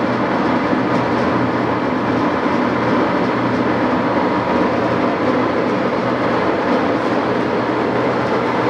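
Sidney 18-inch engine lathe running, a steady mechanical drone from its motor and geared headstock that holds even throughout.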